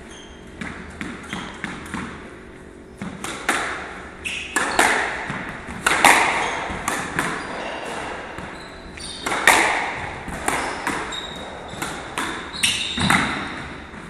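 Squash rally: the ball smacking off rackets and the court walls at an uneven pace, echoing in the court, with short squeaks of shoes on the wooden floor.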